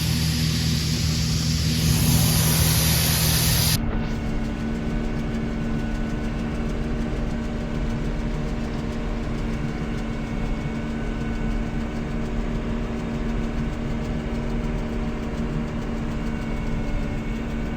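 Combine harvester running steadily in soybean harvest. A loud hiss over a steady engine hum changes abruptly, about four seconds in, to a quieter steady engine drone with a constant humming tone.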